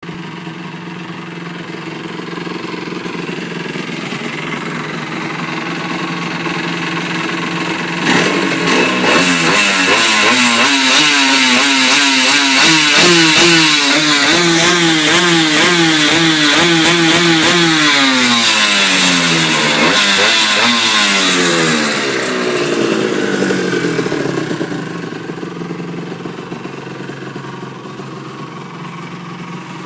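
Honda NSR250R MC28's two-stroke V-twin engine idling, then revved repeatedly in quick rises and falls from about eight seconds in, before dropping back to idle near the end.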